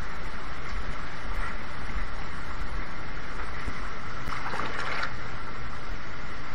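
Water churning and splashing in a plating-shop rinse tank as a stripped steel bumper is dipped in and lifted out, with water pouring off it. There is a short louder splash about two-thirds of the way through.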